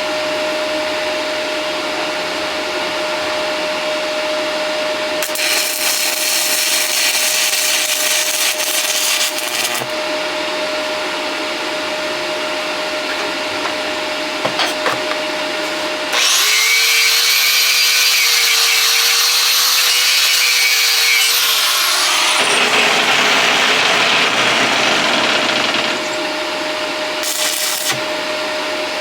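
Stick welding on a steel plate: the arc crackling and hissing continuously over a steady hum. Partway through, a louder stretch with a high whine comes in for several seconds.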